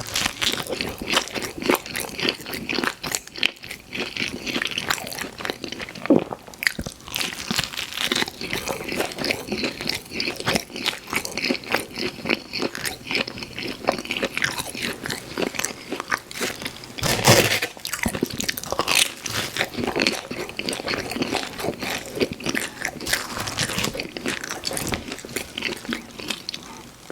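Close-up eating sounds: pizza being bitten and chewed, with a run of crunching and wet mouth clicks. One louder crunch comes about 17 seconds in.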